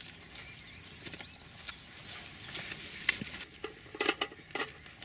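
Rustling and clicking handling noises, with one sharp click about three seconds in and a cluster of louder rustles near the end. Faint bird chirps are heard in the first second or so.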